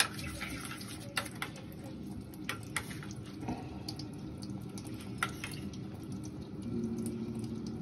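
Light clicks and scrapes of a metal spoon in a steel bowl as sauce is scooped and spread on burger buns, over a low steady hiss.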